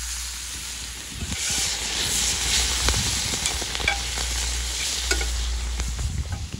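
Chicken pieces sizzling in melting butter in an iron pan, stirred with a slotted metal spatula that clicks and scrapes against the pan. The sizzle gets louder about a second in, as the pieces are turned.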